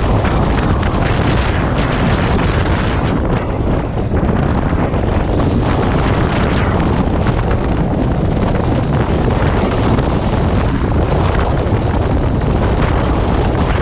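Loud, steady wind noise on the microphone of a moving motorcycle, with the bike's engine and road noise mixed in underneath.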